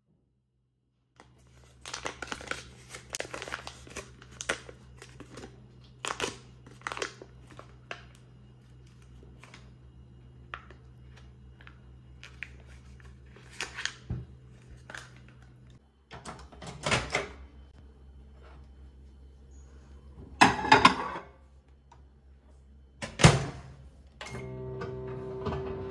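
Kitchen handling sounds: scattered clicks, knocks and foil rustles as butter is unwrapped and set in a glass bowl. Near the end comes a sharp thunk, then a microwave oven starts running with a steady hum.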